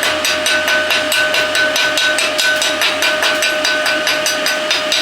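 Chipping hammer knocking weld slag off a freshly welded steel shooting plate: rapid strikes, about five or six a second, with the plate ringing.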